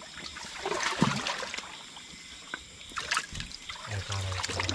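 Water trickling and splashing in irregular bursts, as of wading or working in shallow water.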